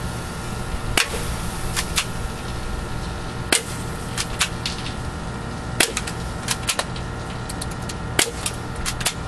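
Airsoft gun fired over and over in single shots: sharp snaps at irregular intervals, about fifteen in nine seconds, some in quick pairs.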